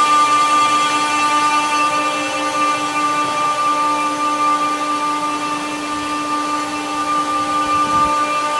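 Haas SL30T CNC lathe running under power: a steady machine hum and whine made of several held tones.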